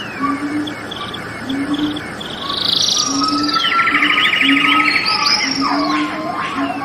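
Several songbirds singing together, with rapid buzzy trills, high chirps and long whistles that swoop down and loop in pitch. Under them a short low note repeats about once or twice a second.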